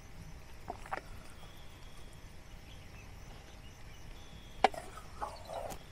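Wooden spoon knocking and scraping against a steel cooking pot and a plastic bowl while noodles are served out, a few scattered clinks with one sharp knock about two-thirds of the way through.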